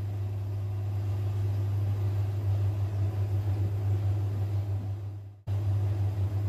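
Steady low mechanical hum with a faint hiss, fading and dropping out for a moment about five and a half seconds in, then resuming.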